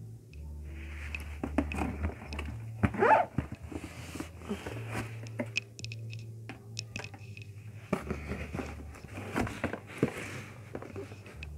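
Cardboard boxes being handled and shifted: bursts of cardboard rustling and scraping with small knocks, loudest in a sharp scrape about three seconds in, over a low steady hum.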